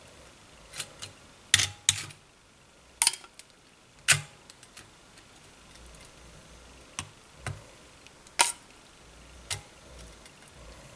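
Metal spoon clinking and tapping against the dishes while thick chocolate pudding is spooned out over graham crackers: a series of irregular sharp clicks, a second or so apart, with a quieter stretch in the middle.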